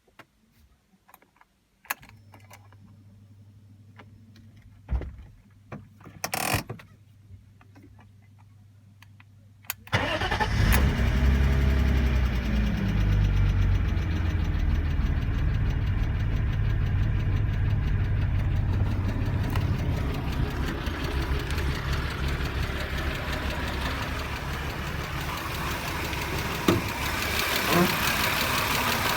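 BMW M50/M52 straight-six engine started: a few clicks and a steady low hum at key-on, then about ten seconds in it cranks, catches and settles into a steady idle. It carries an intermittent knock that the owner cannot trace, one that sometimes goes away and then comes back.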